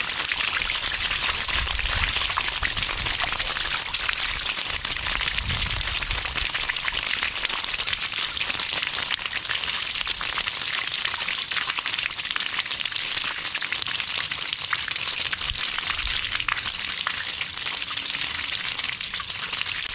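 Water gushing steadily from the trailer's holding-tank drain outlet and splashing onto concrete, as the tank is emptied of the water used to leak-test it.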